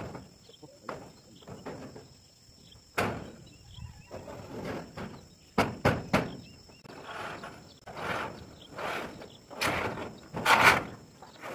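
Corrugated steel roofing sheets knocking, clicking and clattering as they are handled and knelt on, with sharp metallic clicks in the middle and the loudest clatter near the end as a long sheet is lifted. A steady high insect drone runs underneath.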